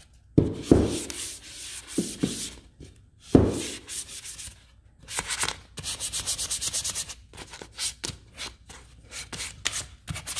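400-grit sandpaper rubbed by hand over a stained wooden cutting board in quick back-and-forth strokes, in short runs with pauses, smoothing the grain that the stain has raised. Two dull knocks, about half a second in and about three and a half seconds in, are the loudest sounds.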